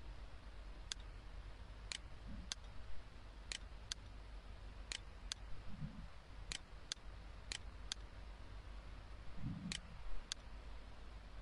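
Faint computer mouse clicks, irregular and often in pairs about a third of a second apart, over a steady low hum.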